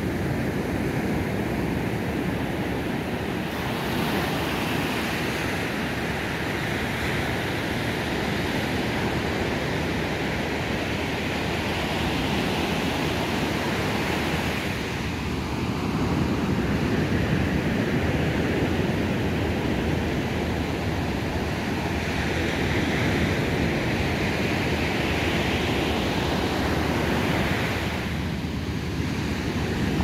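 Surf washing up a sandy beach: a steady rush of breaking, foaming waves that swells and eases every few seconds as each wave comes in.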